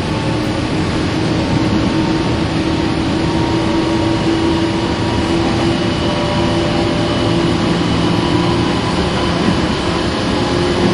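Meitetsu 100 series EMU, an early resistance-control car, running in the subway: a steady rumble of wheels on rail with a motor whine that rises slowly in pitch.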